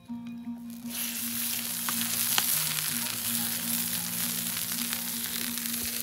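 Oil sizzling on a hot slate slab over a wood fire as it is wiped across the stone to grease it, a dense hiss that starts suddenly about a second in. Background music with long held notes underneath.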